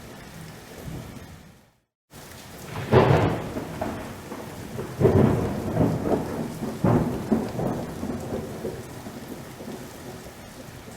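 Thunderstorm: steady rain, then a loud clap of thunder about three seconds in, followed by several seconds of rolling rumbles. The rain cuts out completely for a moment just before the thunder.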